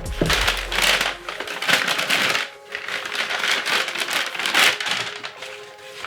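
Plastic packaging crinkling and rustling in irregular bursts as bagged hardware is handled and unwrapped, easing off near the end, over background music.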